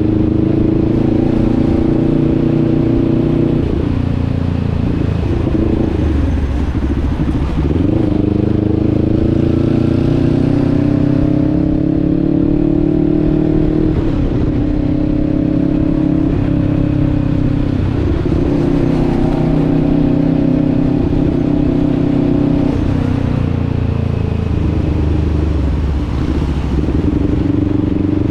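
Motorcycle engine running under way, its pitch repeatedly dropping off and climbing again as the throttle is closed and opened. There is a clear dip a few seconds in, another midway, and one late on.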